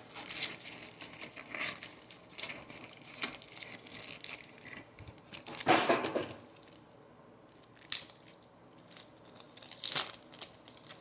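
Trading-card pack wrapper crinkling and tearing as a pack is opened and its cards handled: irregular rustling bursts, the loudest about six seconds and ten seconds in.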